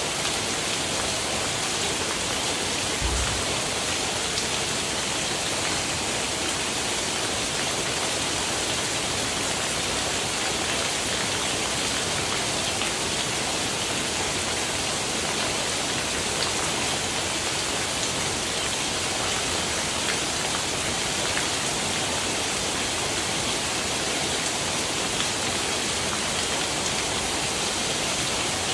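Heavy rain falling steadily: an even, unbroken hiss of downpour.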